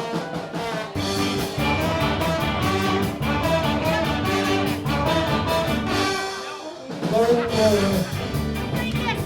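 Ska band playing a trombone solo over a steady offbeat rhythm of guitar, bass and drums.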